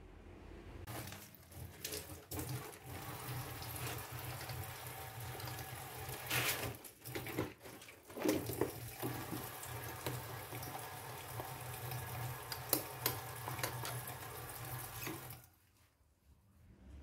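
Water running from a kitchen tap into a sink, with a few clinks and knocks of dishes; the water stops near the end.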